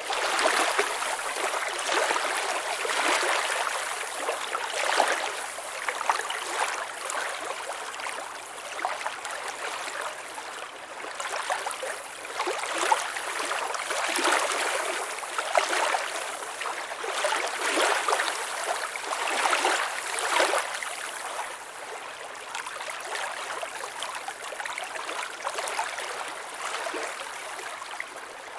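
Running water trickling and splashing: a continuous rush that swells and eases irregularly every second or two.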